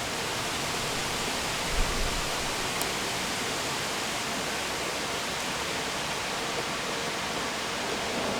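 A steady, even hiss of background noise, with a brief low thump about two seconds in.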